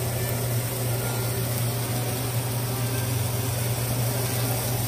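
Beef burger patties sizzling in a nonstick frying pan, a steady even hiss over a constant low hum.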